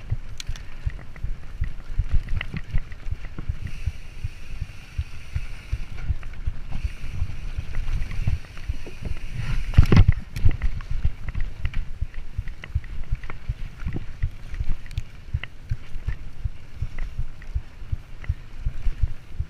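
Mountain bike ridden fast over a dirt singletrack, with a steady wind rumble on the camera microphone and many small rattles and clicks from the bike over the bumps. A heavy thump comes about ten seconds in as the wheels run onto a wooden plank bridge.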